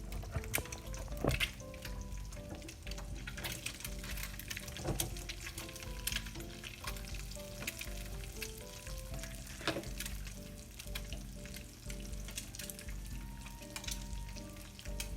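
Eggs frying in bacon grease in a pan, a steady sizzle with frequent sharp crackles and pops. Background music plays under it.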